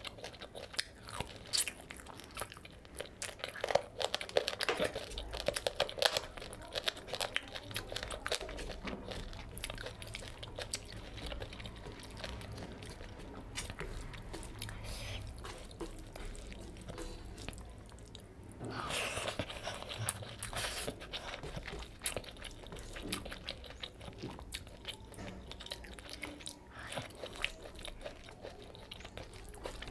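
Close-miked eating sounds: chewing and biting of pork belly curry and rice, with many wet mouth clicks and smacks. Fingers squish and mix curry-soaked rice on the metal tray between mouthfuls.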